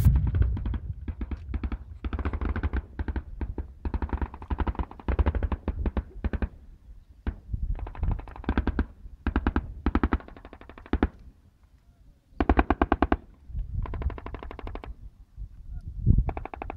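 Bursts of automatic gunfire, each a quick string of shots, following one another with short pauses, with a brief lull about twelve seconds in.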